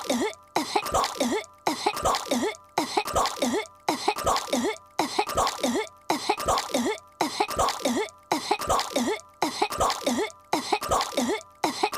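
Cartoon child character choking on gum: a short burst of three or four hacking coughs, looped over and over about once a second.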